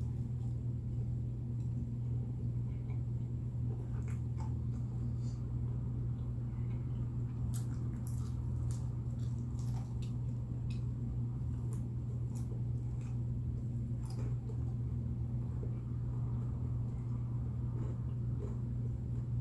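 Someone chewing and biting into chicken wings, with small wet clicks and squishes scattered throughout. A steady low hum runs underneath.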